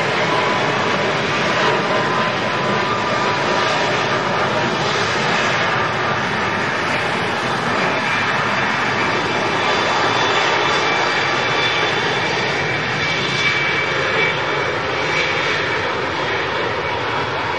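Airbus A340-600 four-engine jet airliner taxiing, its engines running at a steady level with a faint high whine over the broad jet noise.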